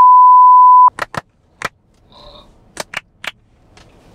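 Bars-and-tone test signal: a loud, steady one-kilohertz beep that cuts off sharply about a second in. After it come six short sharp clicks in two groups of three.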